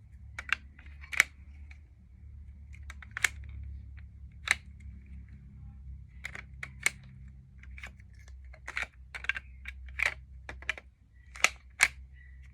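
Sharp plastic clicks and snaps from a Lego brick pistol being handled and worked, about a dozen irregular clicks, some in quick pairs.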